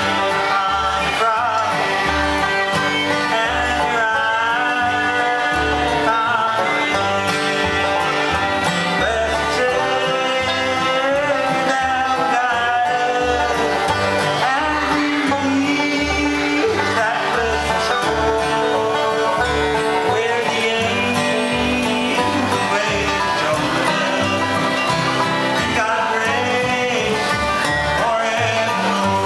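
Live bluegrass band playing: fiddle, acoustic guitar and banjo together, with a steady beat.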